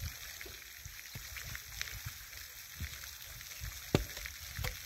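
A cut wooden log post being carried and handled: faint scattered knocks and rustles, then one sharp wooden knock about four seconds in as the post is stood on end.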